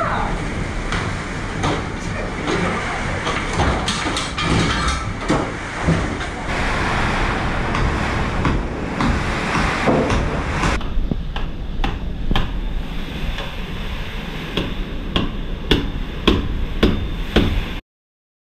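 Cyclone-force wind and rain battering a house, a steady loud rush, with frequent knocks and bangs. About eleven seconds in the high hiss eases and the knocks stand out more clearly. The sound cuts off abruptly near the end.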